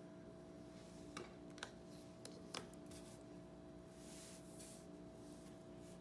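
Faint handling of a mechanical pencil and a plastic lead case on paper: four short, sharp clicks about a second in, then a soft rustle a little later, over a faint steady hum.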